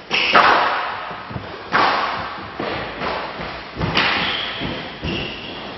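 Squash rally: the ball struck by the rackets and smacking off the court walls in a quick run of sharp hits, each ringing on in the hall's echo.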